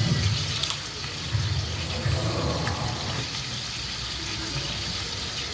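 Seasoned food sizzling in a cooking pot, a steady hiss, with a sharp click about two-thirds of a second in.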